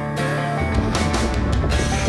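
Background music with held guitar-like notes, a low bass part coming in about half a second in.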